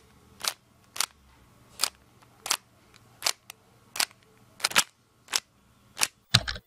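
Sharp clicks of a puzzle cube's layers being turned, one every half second to second, then a quick rattling flurry of turns near the end.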